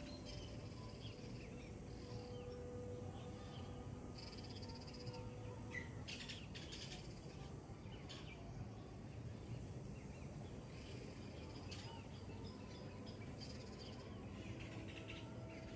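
Faint birds calling and chirping in scattered short notes over a low, steady background hiss, with a brief burst of sharper calls about six seconds in.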